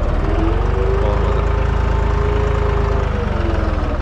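Deutz-Fahr 55F tractor's diesel engine running steadily while cultivating between okra rows. A whine rises about a second in, holds, and falls away after about three seconds.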